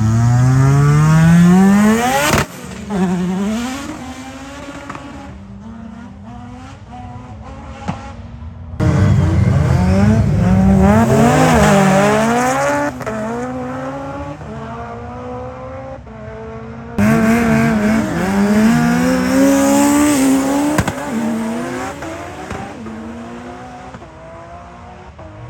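Three clips of high-performance street cars' engines at full throttle: each starts loud at an abrupt cut, climbs in pitch through the revs, then falls away and fades as the car passes and pulls off.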